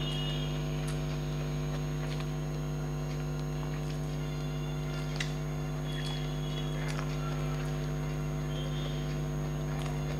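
Steady electrical mains hum, with faint scattered clicks and smacks of food being eaten by hand from a plate.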